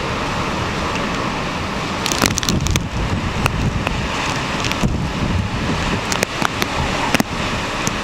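Typhoon wind and surf making a steady loud rush. From about two seconds in, irregular sharp pops of rain striking the microphone join it.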